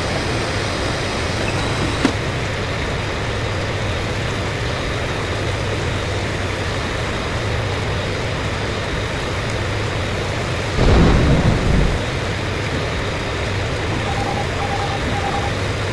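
Steady roar of a Boeing 737-800 aircraft with a low hum underneath, a brief louder low rumble about eleven seconds in, and three short identical beeps near the end.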